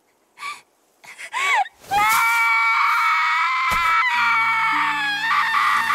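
A brief rising-and-falling cry, then, about two seconds in, a girl's long shrill scream that holds its pitch to the end. Low held music notes come in beneath it about four seconds in.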